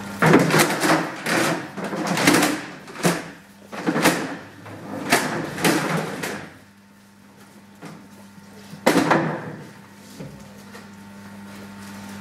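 Stackable chairs being scraped and knocked down on a hard floor, with footsteps: a run of clattering knocks and scrapes through the first half, and one more loud clatter about three-quarters through.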